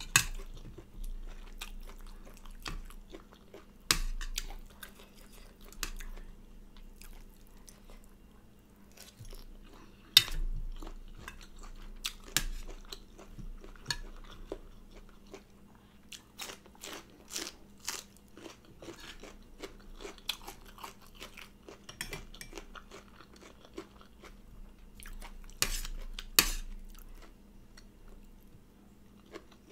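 Close-up chewing and crunching of stir-fried chicken gizzards and rice, irregular crackly bites with a few louder crunches, and a spoon scraping and tapping on the plate now and then.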